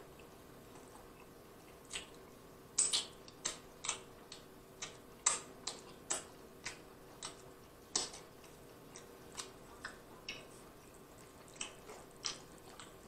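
Close-up mouth sounds of chewing saucy barbecue rib meat: a string of short, wet clicks and smacks, about one or two a second.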